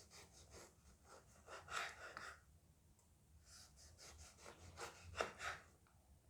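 Knife slicing a lemon thinly on a cutting board: a quick, faint series of short cuts, pausing briefly around the third second.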